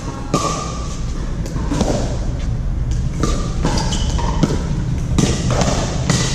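Pickleball rally: paddles striking the hard plastic ball with sharp pops about once a second.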